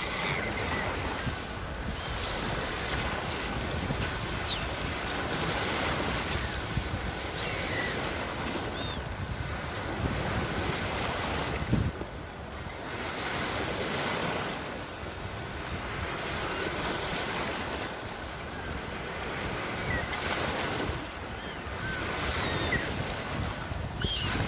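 Sea waves breaking and washing in, swelling and easing every few seconds. Faint short high chirps come through here and there, and there is one sharp knock about twelve seconds in.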